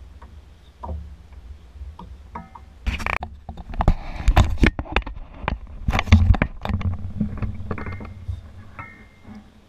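Knocks, bumps and clatter of handling in a kayak as a largemouth bass is lifted off a plastic measuring board and lowered into the water for release. It is loudest in a busy stretch through the middle, then settles to a few lighter knocks.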